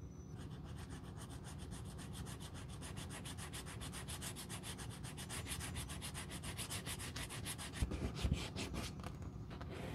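Small strip of sandpaper scratching rapidly back and forth along the worn edge of a coated-canvas wallet, several fast, even strokes a second, sanding the damaged edge smooth before re-coating. A few soft thuds come near the end as the wallet is shifted in the hands, and the strokes stop just before the end.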